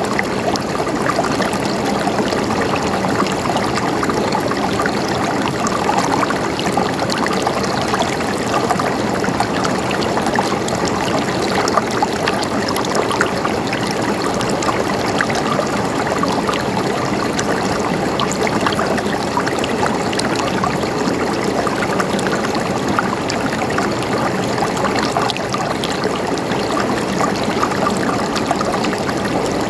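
Flowing water gurgling steadily, with many small splashes and bubbles ticking through it.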